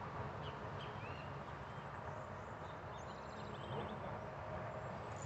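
Faint outdoor lakeside ambience: a low steady background hum with scattered small bird chirps, and a brief run of faint ticks a little past the middle.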